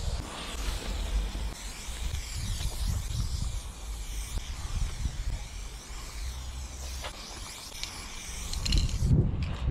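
Aerosol spray paint can hissing as lines are sprayed onto the steel side of a freight wagon; the hiss stops about nine seconds in. A low rumble runs underneath.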